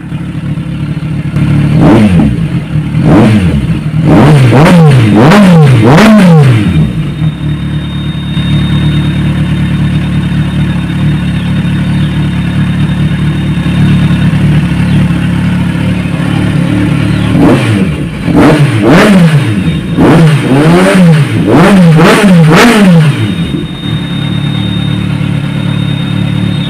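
Kawasaki Ninja 1000SX's inline-four running through a Yoshimura R77 slip-on muffler, idling and then revved in quick blips. There are a couple of single blips about two seconds in and a fast run of revs up to about six seconds. After a long idle, another series of blips comes between about 17 and 23 seconds before it settles back to idle.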